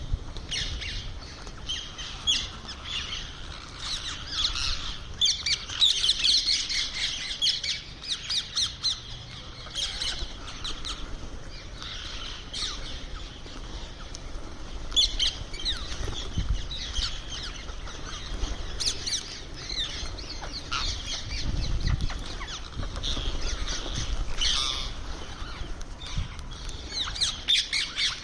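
Indian ringneck parrot calling in many short, high-pitched squawks and chirps, scattered irregularly.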